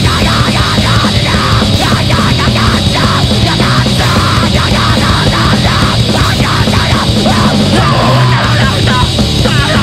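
Loud grindcore recording: distorted guitars and drums played densely at a constant, very high level.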